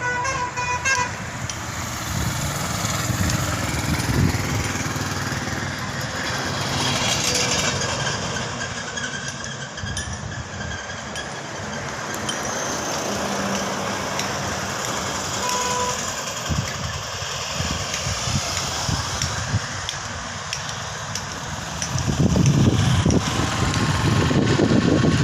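Road traffic noise: vehicles passing steadily, rising and falling in loudness, with a louder low rumble near the end.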